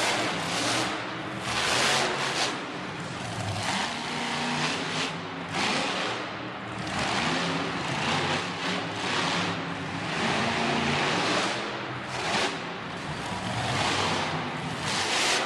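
Monster truck engine revving in repeated surges, its pitch rising and falling with the throttle.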